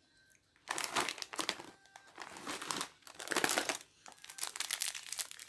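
Crinkling of plastic snack and candy wrappers being handled and shuffled about, in several bursts beginning about a second in.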